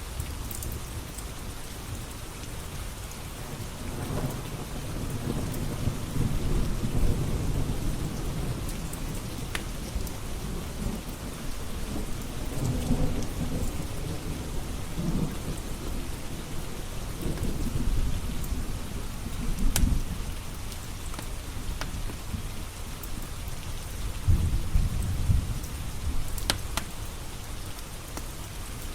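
Steady rain with thunder rumbling low several times, swelling loudest about seven, twenty and twenty-five seconds in. A few sharp pops from a crackling wood fire sound over the rain.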